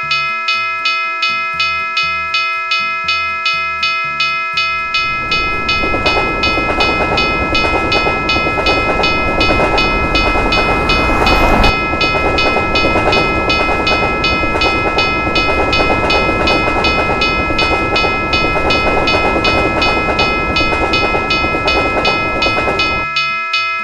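Railroad level-crossing bell ringing steadily, about two strikes a second. About five seconds in, the rumble of a passing train joins it, with a brief louder swell near the middle. The train noise stops about a second before the end while the bell keeps ringing.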